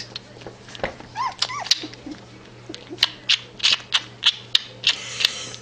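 Puppy sucking on a rubber pacifier: a run of wet sucking clicks, about three a second in the second half. Two short, high whimpering squeaks from the puppy about a second in.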